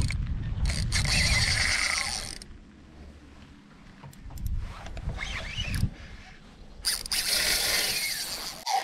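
Fishing reel winding in line in short spells with pauses between, as a jerkbait is twitched and retrieved.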